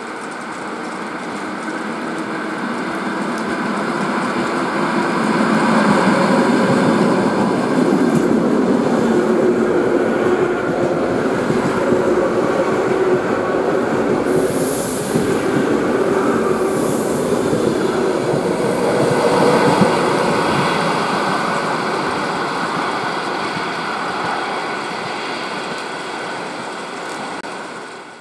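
ER9M electric multiple unit running past along the platform: a steady rumble of wheels and running gear that builds over the first several seconds, holds, then slowly fades. There are two brief high squeals about halfway through, and the sound cuts off abruptly at the end.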